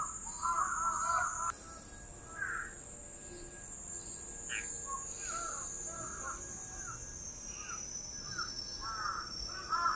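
Crows cawing in short repeated calls, in bunches at first and then scattered, over a steady high-pitched drone of insects.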